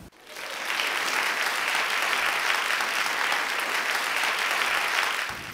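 Applause, many hands clapping, swelling up over the first second and cutting off shortly before the end.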